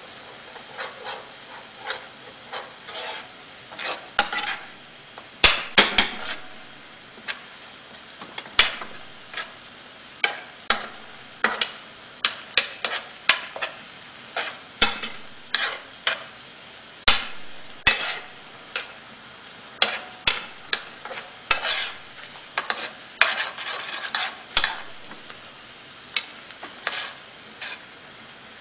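Spatula and spoon scraping and clacking against a frying pan as fried rice is stir-fried, in irregular strokes about one or two a second, over a faint sizzle.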